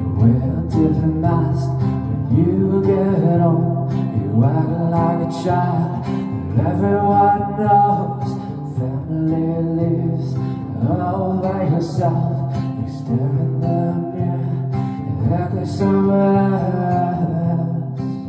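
Classical guitar strummed in a steady rhythm, with a man singing over it.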